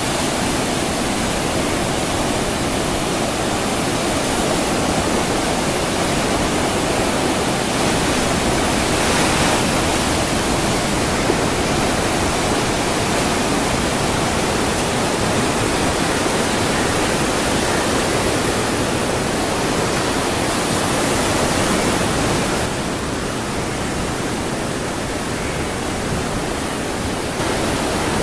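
Ocean surf breaking on the shore: a continuous, even wash of noise that eases slightly for a few seconds near the end.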